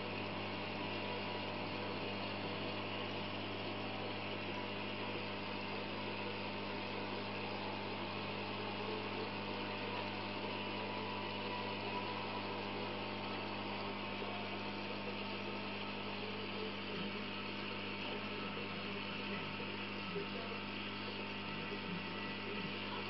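Aquarium pump humming steadily under a constant hiss.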